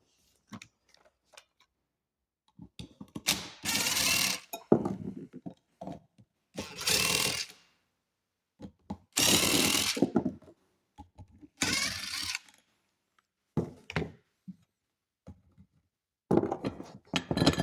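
Four bursts of a power tool, each about a second long, with short knocks and clunks of metal parts in between and a cluster of knocks near the end.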